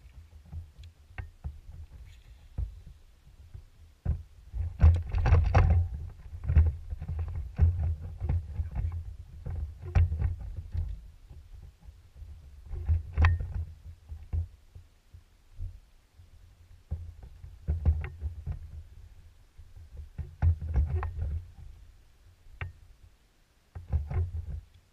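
Irregular low thumps and rumbles from the boat deck and hull as people stand, shift and cast aboard, heard through the boat-mounted camera, with scattered sharp clicks.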